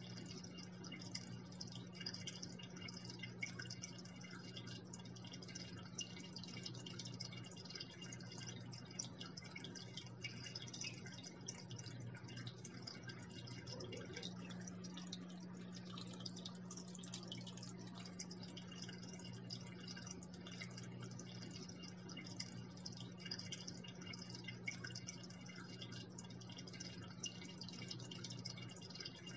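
Water falling into an aquarium, a constant fine trickling and splashing at the surface, over a steady low hum.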